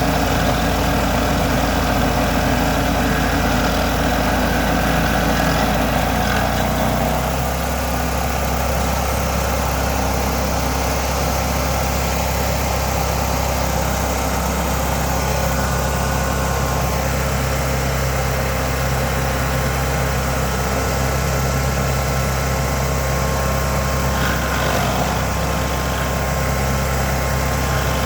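Engine of a 37 hp Vermeer SC382 stump grinder running steadily, its note shifting lower about seven seconds in and then holding.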